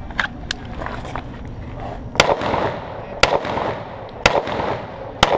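Sig Sauer 1911 TACOPS pistol firing .45 ACP: four shots about a second apart, each followed by a short echo, after two faint clicks near the start.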